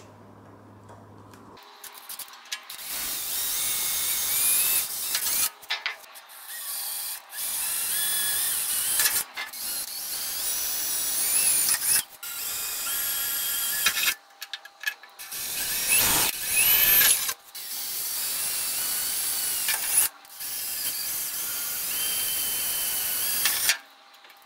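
Cordless drill boring holes through a metal footplate: a high-pitched whine and screech of the bit cutting metal, in runs of a few seconds with short pauses between holes, the motor's pitch rising as each run starts.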